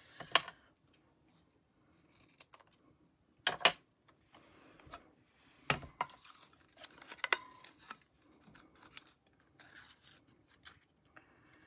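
Stampin' Up plastic paper punch being loaded with a cardstock label and pressed to trim it, giving a few sharp clicks and clunks with paper and plastic handling rustles between them.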